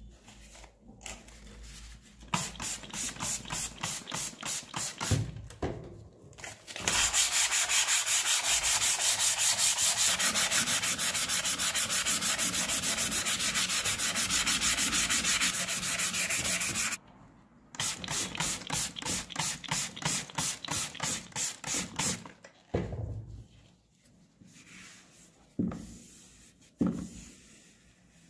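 Sandpaper scraping back and forth by hand along a rusty steel air-gun tube, the International Delux Model 95's, wet with rusty water. The strokes run rhythmically at first, then quick and steady for about ten seconds in the middle, which is the loudest part. They slow again and thin out to a few light rubs and knocks near the end.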